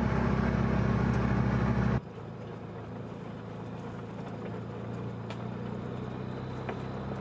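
Side-by-side UTV engine running steadily, heard loud inside the cab. About two seconds in it drops suddenly to a quieter engine hum mixed with a hiss as the machine drives through brush.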